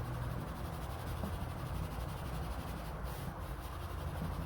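Pencil shading on paper: a steady scratchy rubbing over a low hum, with a brief sharper scratch about three seconds in.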